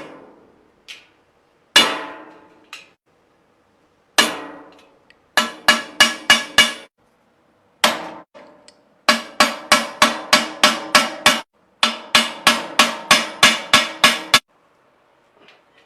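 Hammer blows with a ringing note to each strike: a few single blows, then three quick runs of about four strikes a second, as a handmade cat litter box is hammered together.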